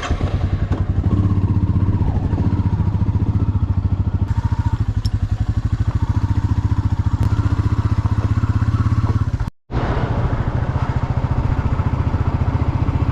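Royal Enfield Meteor 350's single-cylinder engine running steadily with an even, rapid beat. The sound drops out for an instant about two-thirds of the way through.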